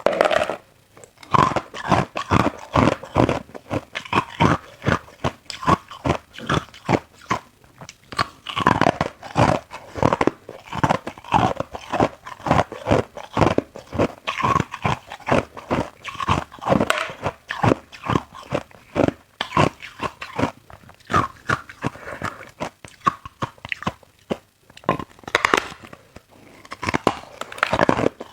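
A person biting and chewing ice close to the microphone: a fast, irregular run of sharp crunches with brief pauses between bites.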